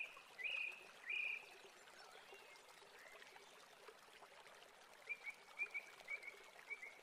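Wire whisk stirring a thickening milk pudding mixture in a stainless steel saucepan, quietly. Over it come short high chirps: four in the first second and a half, then a quicker run of about eight near the end.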